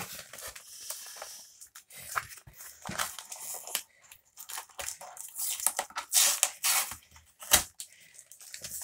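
Cardboard book mailer being torn open by hand: irregular tearing and crunching of cardboard, louder from about five seconds in, with a sharp snap near the end.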